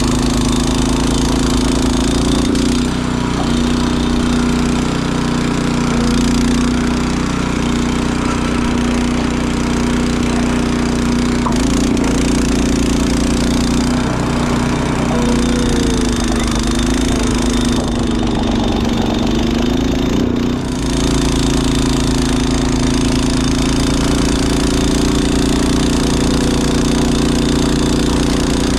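Honda snowblower engine running steadily. Its pitch dips and wavers for several seconds past the middle as it takes on a load of heavy, wet snow, then steadies again.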